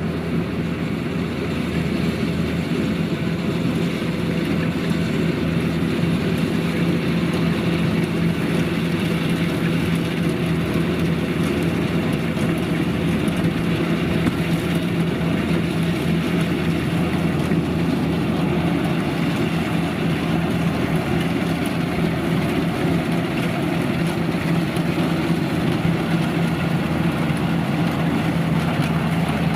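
Kubota DC-93 rice combine harvester's diesel engine running steadily, a constant low drone with a strong hum.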